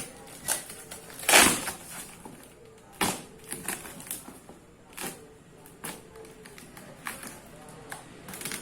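Handling and unwrapping of a parcel containing plastic betta-fish jars: scattered clicks, knocks and rustles, with one louder scrape about a second and a half in.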